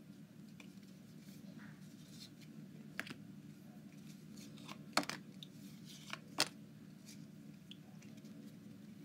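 A few sharp clicks and light crinkles over a steady low hum; the loudest snaps come about five seconds in and again about a second and a half later.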